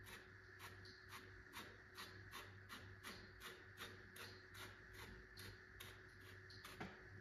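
Faint, even scraping strokes, about two a second, of a spatula spreading epoxy grout over tile joints, over a low steady hum.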